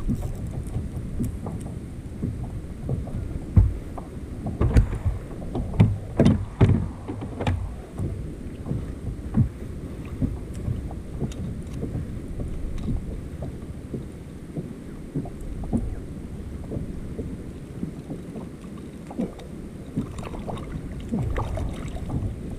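Water lapping and sloshing against a kayak hull, with wind buffeting the microphone and irregular knocks and clicks, a cluster of louder ones a few seconds in.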